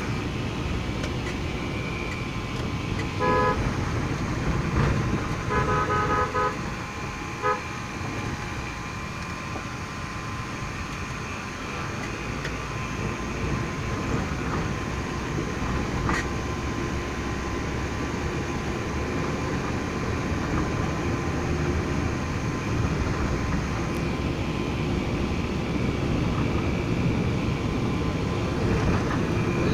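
Steady road and engine noise of a moving car, heard from inside the cabin, with a car horn sounding three short toots between about three and eight seconds in.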